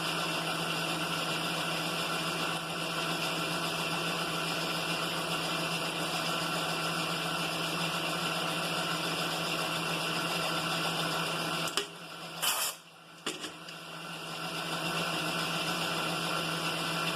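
Milling machine spindle running steadily with a boring head and bar, fed down by hand through the bore, a steady hum with several fixed pitches. Past the middle the sound drops away briefly, then builds back up to the same steady running.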